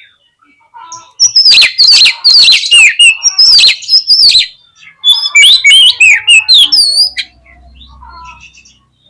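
Oriental magpie-robin singing loud, varied phrases of sweeping whistles and sharp notes. The song comes in two long runs, starting about a second in and again at about five seconds, with fainter notes near the end.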